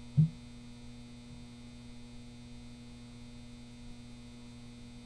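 Steady electrical mains hum on the recording, several low tones held level throughout, with one short low thump about a fifth of a second in.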